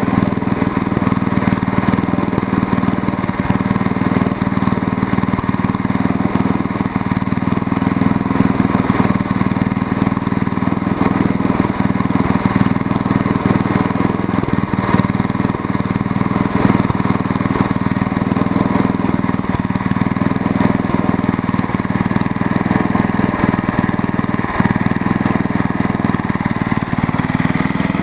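1968 Ariens snowblower's engine running at a steady speed, cold, just after being pull-started.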